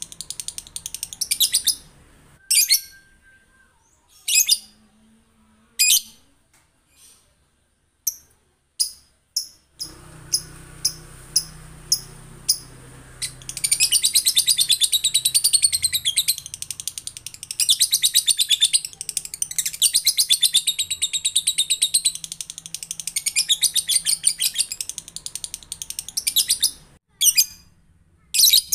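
Male lovebird's ngekek, a rapid, high-pitched chattering trill. It opens with a short trill, gives scattered single chirps for about ten seconds, then breaks into one long unbroken chatter of about thirteen seconds, and ends with a few short calls. A faint low hum comes in about ten seconds in.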